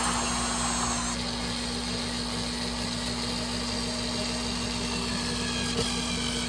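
Power drill running steadily, its whine rising near the end, over a constant electrical hum.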